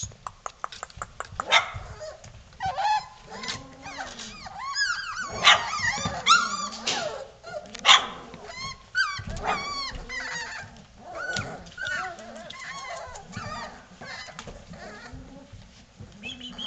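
A litter of four-week-old Vizsla puppies yipping and whining over one another: many short, high cries that rise and fall in pitch, overlapping and coming thick and fast. A quick run of clicks sounds in the first second or so.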